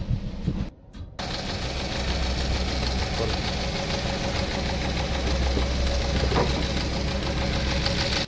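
A four-cylinder 1.8 L Toyota Corolla engine idling roughly with a steady misfire: cylinder 2 is not firing. It runs evenly after a brief break about a second in.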